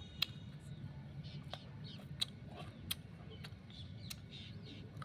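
Raw sugarcane being bitten and chewed: a few sharp, short cracks of the fibrous cane, roughly a second apart.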